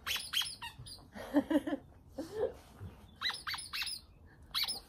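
Squeaky ball inside a fabric mitten squeaking in quick clusters of two or three as an Alaskan Malamute chomps on it during tug play; each squeak is short and high and drops in pitch. A few short, low grunting sounds come in between.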